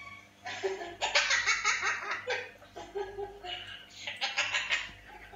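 Two bouts of laughter, quick pulsing 'ha-ha-ha' sounds, the first starting about half a second in and running nearly two seconds, the second about four seconds in.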